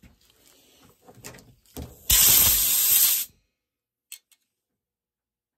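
A loud spraying hiss lasting about a second, starting about two seconds in, after a couple of light knocks; then the sound cuts off abruptly.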